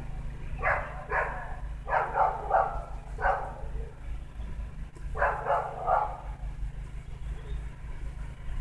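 Dog barking, about nine barks in three quick clusters, over a steady low rumble.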